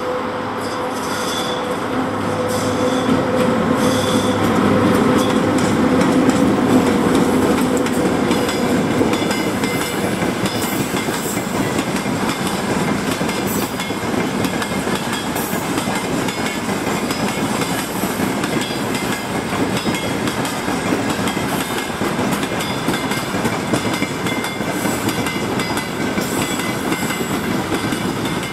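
VL80T two-section AC electric locomotive passing with a steady hum, loudest about six seconds in, then a freight train of open gondola wagons rolling by with wheels clicking over the rail joints.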